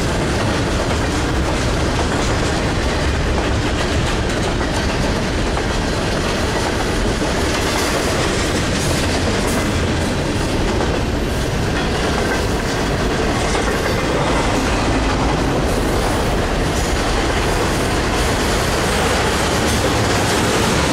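Double-stack intermodal container train's freight cars rolling past, the steel wheels running on the rails with a steady, unbroken noise.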